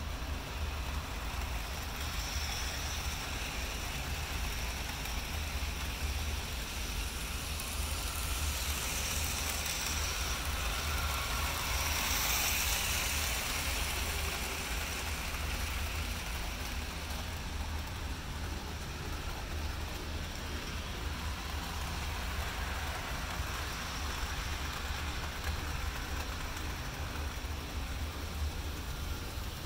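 Model trains running on a home layout: a steady rolling rumble and hiss of wheels on track over a constant low hum, swelling to its loudest as a passenger train passes close by about twelve seconds in.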